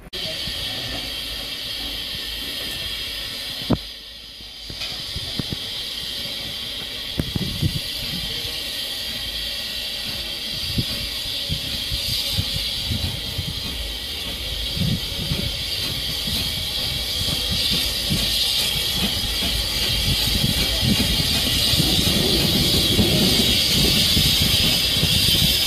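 SECR P class 0-6-0 tank locomotive 'Bluebell' running slowly into a station with its coaches. A steady hiss of escaping steam grows louder as it nears, over the low rumble and knocking of its wheels on the rails. A single sharp click comes about four seconds in.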